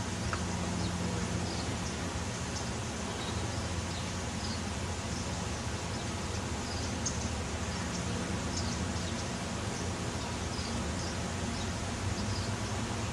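Steady outdoor background noise with faint, short high chirps scattered through it every second or so.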